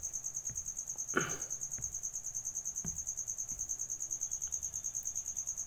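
Insect chirping: a high, evenly pulsing trill that goes on steadily, with a faint tap or two.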